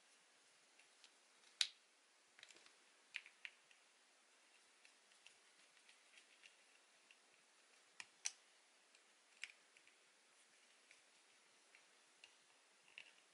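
Faint, scattered small clicks and taps of a screwdriver and fingers at work on an Agidel electric shaver's blade-frame screws, with the sharpest clicks about a second and a half in and again about eight seconds in.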